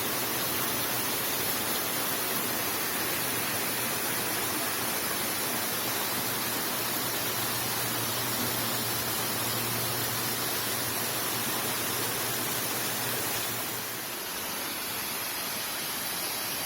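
Waterfall: a steady, even rush of falling water, dipping slightly in level near the end.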